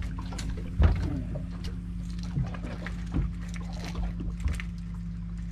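Steady low hum of boat machinery, with scattered knocks and taps; the loudest is a thump about a second in.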